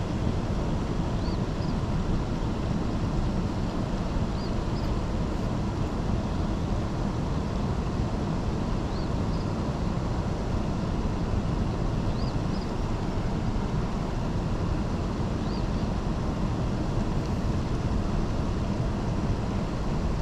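Steady rush of water pouring through a dam tailwater, an even roar that holds at one level throughout. Short high chirps come every three to four seconds over it.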